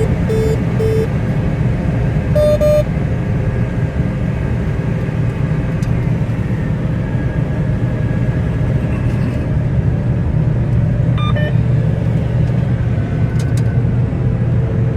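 A large engine running steadily with a low rumble. There are three short electronic beeps in the first second and a longer beep about two and a half seconds in.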